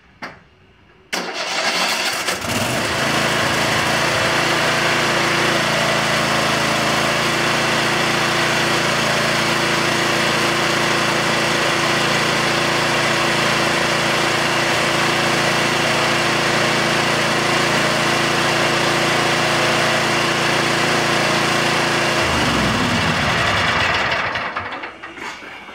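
Kohler 7000 Series 25 hp V-twin engine on a Troy-Bilt Mustang zero-turn mower, started about a second in, catching and running steadily for a warm-up on fresh oil. Near the end it is shut off, its pitch falling as it spins down to a stop.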